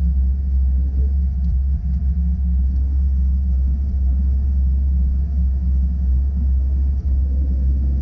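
Bobcat S595 skid-steer's diesel engine and drive running steadily under load, heard from inside the cab as a loud, even low rumble while it pushes snow with a straight-set plow blade.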